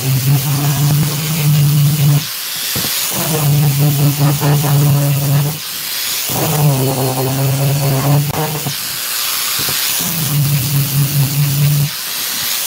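Electric angle grinder with a sanding disc sanding a wooden panel, a steady motor hum over a hiss. The hum breaks off briefly four times while the hiss carries on.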